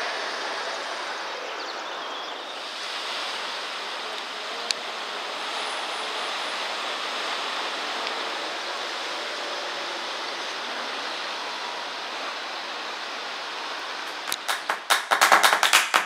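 Sea waves washing in and breaking on rocks, a steady rush of surf. About fourteen seconds in, electronic dance music with a pounding beat cuts in.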